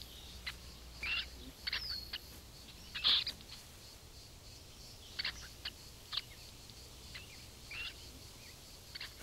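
Scattered short bird chirps and calls, each brief and separate, one sliding down in pitch about two seconds in and the strongest about three seconds in, over faint open-air background.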